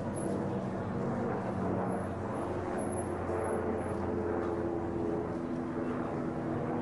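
Steady low mechanical drone with several held tones, a couple of which shift in pitch a few seconds in.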